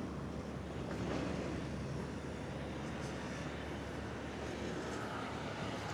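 Steady outdoor street background: an even rumble of distant traffic, with no distinct events.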